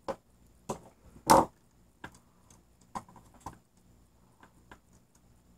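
Hand-tool handling noise: a screwdriver and a plastic-and-metal electrical plug clicking and knocking while wires are fitted into its terminals. About eight short, sharp clicks, the loudest a little over a second in.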